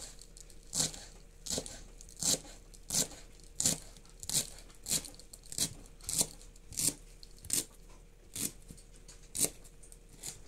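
Chef's knife chopping fresh cilantro on a wooden cutting board: crisp, even chops about one every 0.7 seconds, stopping shortly before the end.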